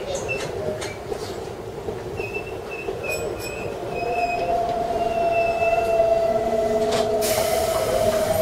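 Keikyu electric train creeping through curves to its stop: steel wheels squealing on the rails in a high tone and a lower tone that come and go. A loud hiss breaks in about seven seconds in.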